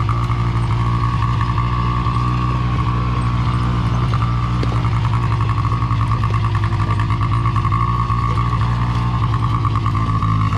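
Off-road vehicle engine running steadily at a constant speed while towing a dead machine.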